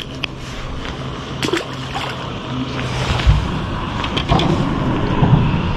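Handling noise in a small fishing boat: clicks and scrapes of unhooking and handling a fish, with a few dull thumps against the deck about halfway through and near the end, over a steady low hum.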